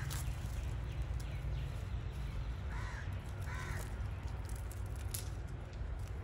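Two short, harsh bird calls about three and three and a half seconds in, from the gamefowl or a crow nearby, over a steady low rumble. A light click comes near the end.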